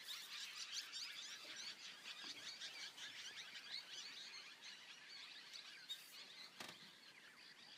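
Faint forest ambience of many small birds chirping and twittering together, with a couple of soft clicks near the end.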